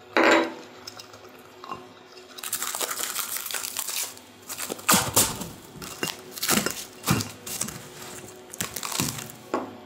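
Plastic cling film rustling as it is pulled off the roll, then crinkling and crackling in irregular bursts as it is stretched and pressed over a glass bowl. A short knock sounds right at the start.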